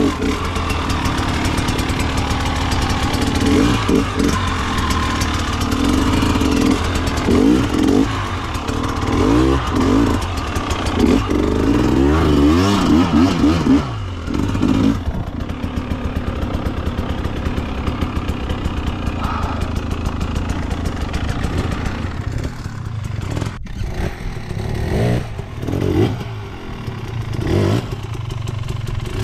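Single-cylinder two-stroke engine of a 2024 Husqvarna TE300 TBI dirt bike being ridden on trail, its pitch rising and falling repeatedly as the throttle is worked. After about 14 seconds it settles into a lower, steadier drone, with a few short revs near the end.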